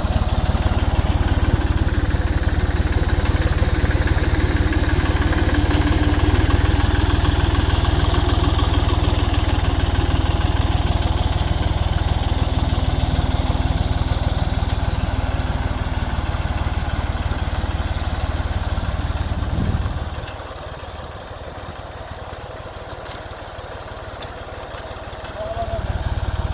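Tractor engine running steadily under load while driving a trenching implement that cuts a trench through dry, stony dirt. About twenty seconds in the sound drops noticeably for several seconds, then rises again near the end.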